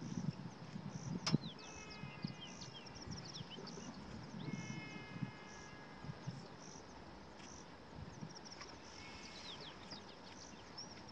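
Wild birds calling in the bush: a high note repeated about once a second, short falling chirps and a few steady whistled notes, over faint low rustling. There is a single sharp click about a second in.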